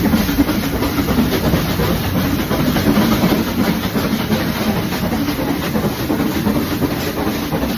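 Nilgiri Mountain Railway train running, a steady rumble with a dense rattle and clatter of the wheels and carriages on the track.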